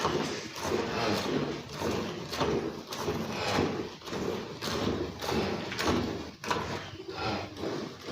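Cow being milked by hand: jets of milk squirting into a metal pail in a steady rhythm, about two squirts a second.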